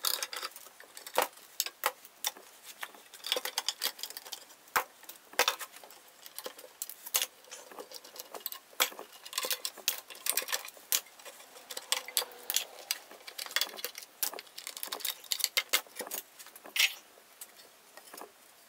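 Steel bar clamps being loosened and taken off one after another, with irregular metal clicks and clatter as they are dropped into a pile.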